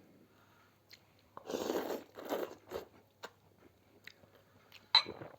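Close-up eating sounds: chewing and crunching bites of food, mostly in a cluster from about a second and a half to three seconds in, with a few sharp mouth clicks.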